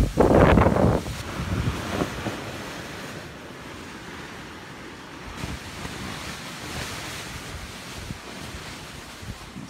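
Hurricane wind gusting: a loud blast buffets the microphone for about the first second, then eases into a steadier, quieter rush of wind.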